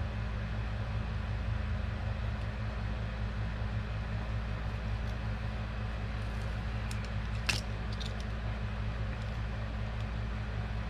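Steady low hum, with a few faint ticks and one sharp click about seven and a half seconds in.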